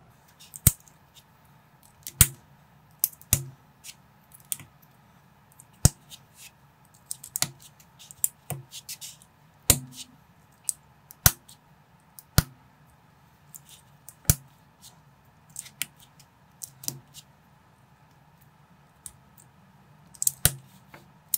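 Plastic LEGO-compatible building bricks being handled and pressed together: a run of sharp, irregular clicks, about one or two a second.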